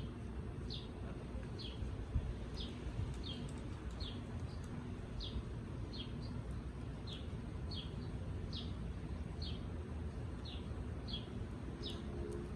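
A bird's short, high chirp sliding down in pitch, repeated at an even pace a little more than once a second, over a steady low rumble of background noise.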